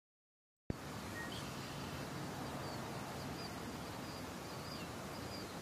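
Outdoor nature ambience: a steady hiss with scattered faint, high bird chirps, cutting in abruptly out of silence under a second in.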